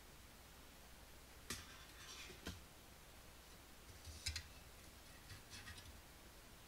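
Faint handling of a metal PC case panel: a few light clicks and knocks, the loudest a double knock about four seconds in as the panel is moved and set down, with soft rustling between.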